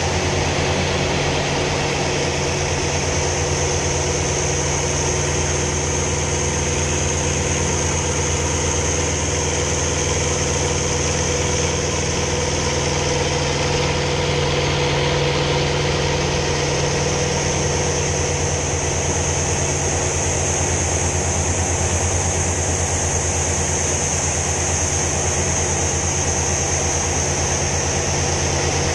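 Hawker Sea Fury T20's big radial piston engine and propeller running steadily in flight, heard from inside the cockpit as a loud, unbroken drone. The tone shifts a little around the middle as the aircraft pulls up through a manoeuvre.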